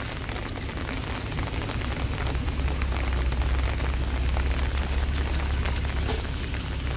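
Heavy rain falling on wet paving and puddles: a dense, even hiss with many fine drop ticks. A low rumble swells in the middle and fades near the end.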